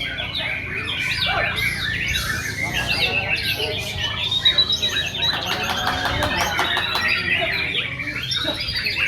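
Several white-rumped shamas singing loudly in full song, overlapping varied whistled phrases, quick rising and falling glides and rapid chattering trills, over a steady low background murmur.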